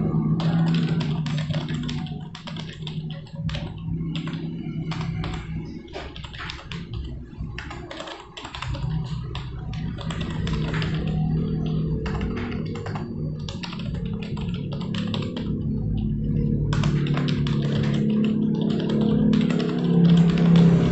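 Typing on a computer keyboard: runs of rapid key clicks broken by short pauses, over background music.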